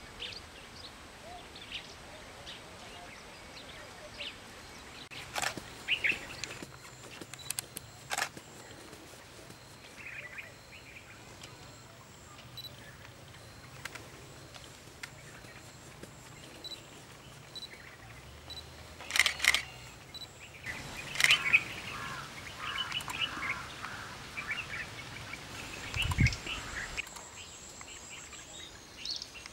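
Wild birds chirping and calling in short, scattered notes that grow busier in the second half, broken by a few sharp clicks and one low thud near the end.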